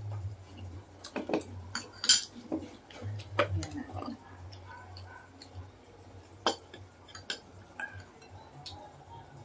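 A spoon and plates clinking and knocking against each other and the tabletop, a string of scattered sharp clinks as cake is served and eaten.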